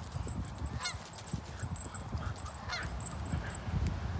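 Geese honking, a couple of short calls, over a low steady rustling.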